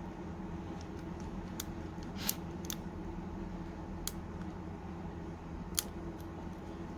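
Small hand tools clicking and tapping against the phone's small metal parts: about five short sharp clicks, the loudest about two seconds in and near the end, over a steady low hum.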